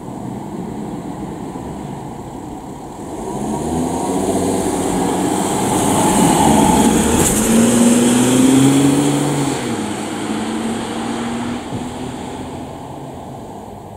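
Ambulance pulling out and driving past, its engine accelerating and rising in pitch as it comes closer. It is loudest about halfway through, then falls in pitch and fades as the vehicle drives away.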